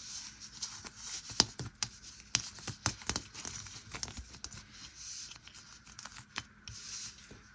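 Hands fitting a plastic Christmas bauble into a crocheted yarn cover: faint rustling of yarn against the plastic ball, with scattered small clicks and taps as it is handled.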